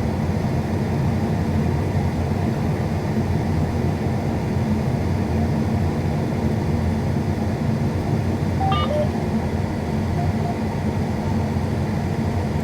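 Combine harvester running, a steady low drone heard from inside the cab. About nine seconds in, a short chime of a few electronic beeps at different pitches sounds over it.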